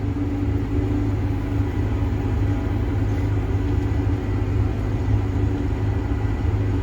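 Combine harvester running steadily while driving across the field in second range, heard from inside the cab as a low, even hum, with a full grain tank and a heavy header on.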